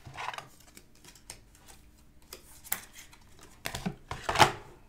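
Trading cards being handled and laid down on a tabletop: a few scattered soft clicks and rustles, with a louder cluster near the end.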